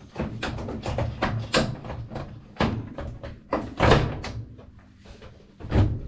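Plastic knocks and clunks of a GE top-load washer's control console being handled and pushed back into place on the cabinet: a rapid string of sharp knocks, the loudest about four seconds in and again near the end.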